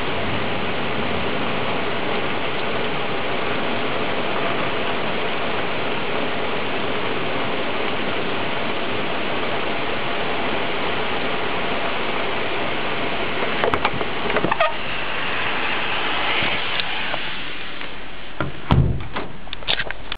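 Steady rain falling in a thunderstorm, an even hiss. A few clicks come past the middle, and knocks near the end as the camera is handled.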